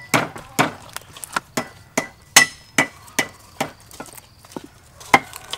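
Steady chopping knocks, about two to three a second, of a blade striking a wooden cutting board, a few with a short ring.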